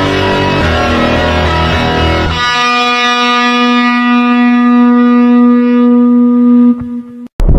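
Phonk music track. About two seconds in, the bass and beat drop out, leaving one long held note; near the end it cuts off into a brief silence with a click before the heavy bass comes back in.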